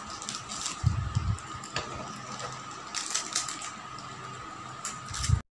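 Plastic cracker wrappers crinkling and tearing as they are opened, with scattered crackly clicks and a brief low thump about a second in.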